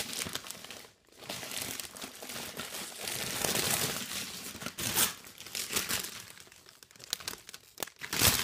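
Clear plastic wrapping crinkling and crackling as it is pulled about and crumpled by hand, in uneven bursts with sharp crackles, the loudest near the end.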